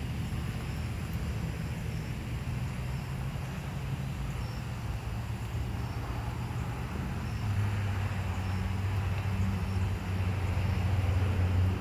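Low, steady hum of a running vehicle engine with road noise, growing louder about two-thirds of the way through.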